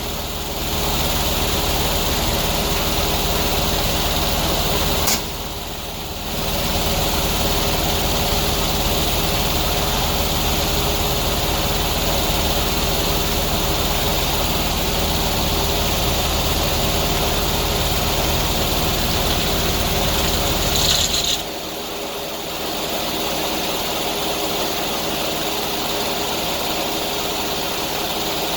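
Engine running steadily, with two short dips in level, about five seconds in and about twenty-one seconds in.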